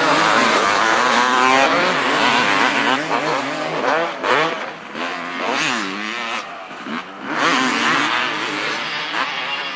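Two-stroke 250 cc motocross bikes, Honda CR250R and Kawasaki KX250, revving hard on the track. The engine pitch rises and falls over and over as the riders work the throttle and shift through corners and jumps. More than one bike is heard at once, and the sound dips briefly around the middle.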